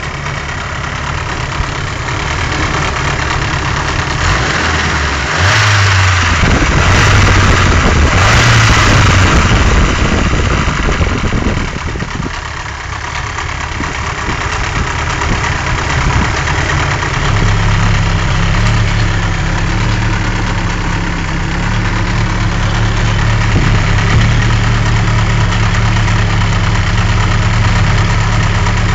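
Nissan SR20 turbo engine running hot with a knock that is very noticeable, a noise that goes away once the engine cools. It gets louder for several seconds about five seconds in, then settles to a steady note.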